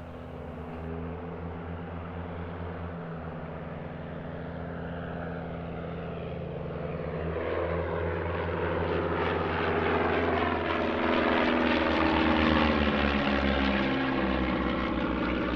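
Propeller-driven piston engines of a pair of classic training aircraft flying a display, a steady drone that grows louder, with the pitch bending as they pass in the second half.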